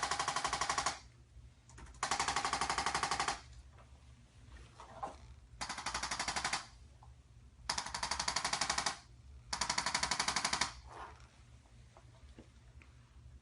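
Handheld electric percussion instrument tapping rapidly on the body in five short bursts of about a second each, a fast machine-gun-like rattle with brief pauses between; the last couple of seconds are quiet.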